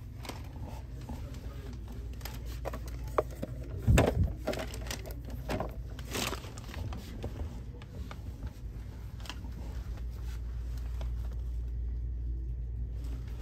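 Shop background noise: a steady low hum with scattered small clicks and rustles, and a louder thump about four seconds in.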